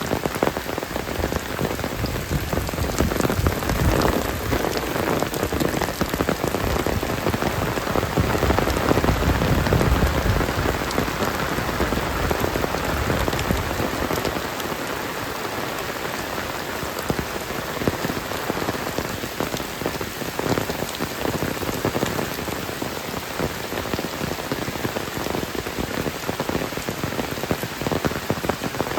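Heavy rain falling steadily, a dense hiss with many individual drops striking close by. It is heaviest in the first ten seconds or so, then eases slightly and stays even.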